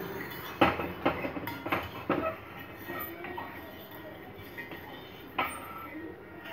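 Steel spoon scraping and clinking against a metal tawa (griddle) as oil is spread over it: a quick run of sharp clicks and scrapes in the first two seconds, and one more clink about five and a half seconds in.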